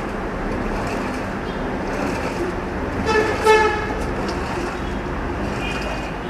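LG top-load washing machine in its main wash, water sloshing steadily in the tub. About three seconds in, a short high-pitched tone sounds twice over it.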